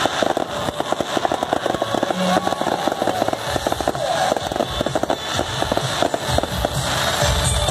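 Aerial fireworks display: a dense, rapid barrage of bursting shells, many sharp pops in quick succession.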